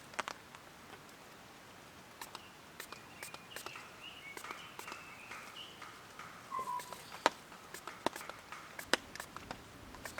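Quiet outdoor ambience with scattered sharp clicks and light knocks, and a few faint bird chirps in the middle.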